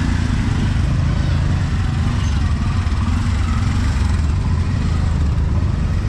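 Busy street traffic noise: vehicle engines running close by, a steady low rumble.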